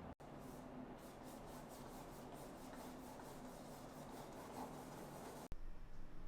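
A paintbrush rubbing across a canvas in quick, repeated back-and-forth strokes, about four a second. It cuts off abruptly near the end.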